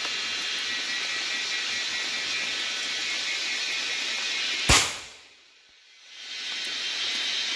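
A single gunshot from a long-barrelled hunting gun, one sharp report about two-thirds of the way in, over a steady high hiss of the forest. Right after the shot the sound drops almost to nothing for about a second before the hiss returns.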